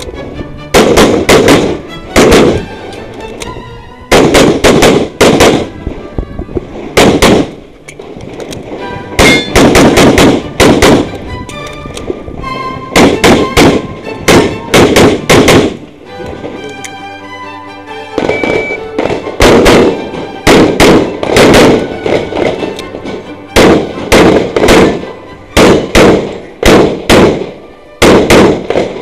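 Pistol shots from an ADC Master Elite competition pistol, fired mostly in quick pairs in rapid strings, with a short lull a little past halfway. Music plays underneath.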